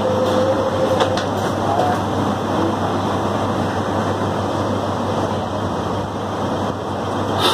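Steady running noise inside an automated airport people-mover train car: an even rumble with a low hum. A faint tone sounds in the first second and a click about a second in.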